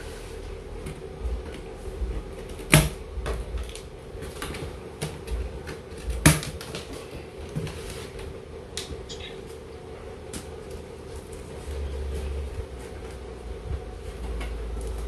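Scissors snipping and scraping at plastic packing straps and tape on a cardboard box, with scattered small clicks and two sharp snaps, about three and six seconds in. A steady hum runs underneath.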